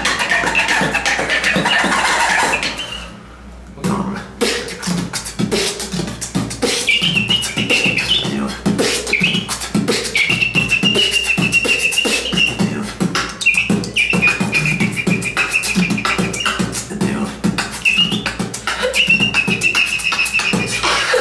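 Human beatboxing: a fast run of mouth-made kick drum and snare clicks. It opens with warbling scratch-like sounds and drops off in a short lull around three seconds. From about seven seconds a high whistle-like vocal melody is held over the beat.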